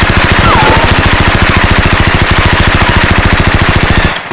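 Automatic machine-gun fire sound effect dubbed over a Nerf Rhino-Fire blaster: a long, loud burst of rapid, evenly spaced shots that cuts off suddenly near the end.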